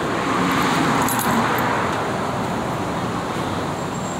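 Applause from a small seated audience, swelling in the first second and then slowly tapering off.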